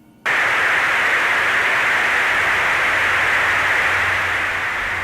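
A loud, steady hiss of static noise that cuts in suddenly just after the start and eases off a little near the end.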